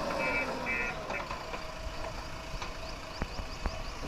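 Heavy vehicle's reversing alarm beeping rapidly over its engine, which changes pitch; both stop about a second in. Later come two sharp knocks and a quick run of short high chirps.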